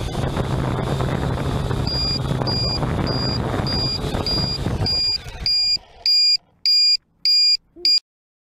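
Syma X8C quadcopter's motors and propellers running steadily with a low hum, cutting out about five seconds in. A high electronic beep repeats about twice a second over it, then louder, longer beeps follow about once every two-thirds of a second, and the sound stops just before the end.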